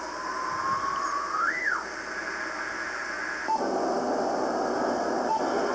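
Ham radio receiver on the 40-meter band giving static hiss with a whistling tone that drifts slowly up in pitch, then swoops high and back down about a second and a half in, as the set is tuned across a signal. Just past halfway the hiss changes and grows a little louder.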